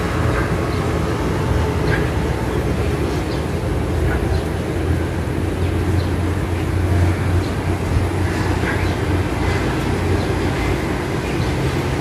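A steady low rumble of background noise, with faint short calls from a myna every couple of seconds.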